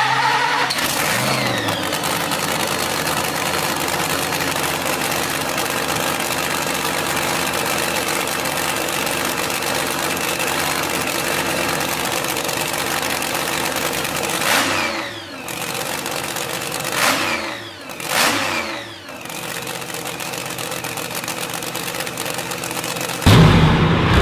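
Engine running steadily, revved several times after the midpoint with its pitch falling and rising. About a second before the end it gives way suddenly to a louder, deeper-running engine.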